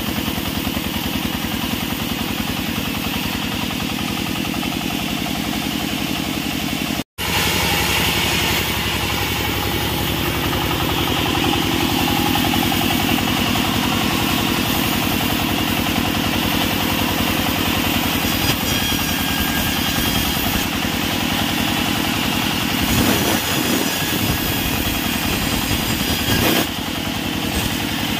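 Large vertical band saw running steadily as a wood slab is fed through the blade, a continuous mechanical drone. The sound cuts out for an instant about seven seconds in.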